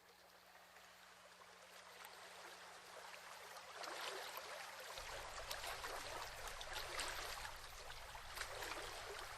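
Rushing water of a waterfall, a steady hiss that fades in gradually and grows louder, with a low rumble joining about halfway.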